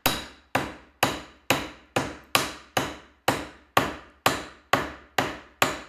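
Heavy metal hammer striking a wooden wedge, driving it into the sawn slot in the top of a hickory axe handle's tenon: about two steady blows a second, each with a short ring. The wedge is being driven home to spread the tenon and lock the axe head on, until the blows give a dull, dead tone.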